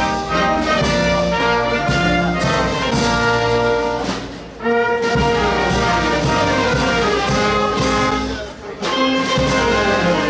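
Brass band playing a tune with held notes and a tuba in the bass, breaking off briefly between phrases about four and a half and nine seconds in.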